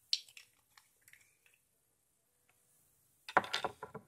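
A few faint clicks and taps, then about three seconds in, loud rustling and bumping as the recording device is picked up and moved.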